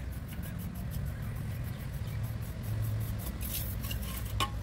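A paintbrush scrubbing in quick, repeated scratchy strokes over the ridged surface of a cement planter, over a steady low rumble. There is a sharp click near the end.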